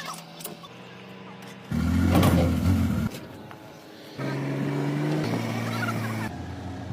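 Truck engine running steadily, with its pitch and loudness jumping abruptly several times.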